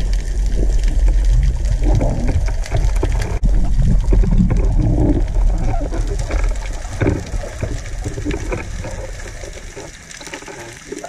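Muffled underwater rumble of water moving against a submerged camera housing, with irregular swishes as the diver swims; it eases off somewhat near the end.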